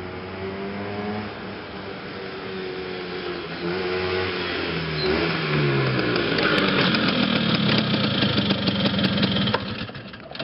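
1978 Vespa Super 150 scooter's two-stroke single-cylinder engine running as it rides towards and past, its pitch rising and dropping several times, then growing louder as it comes close. The sound cuts off suddenly near the end.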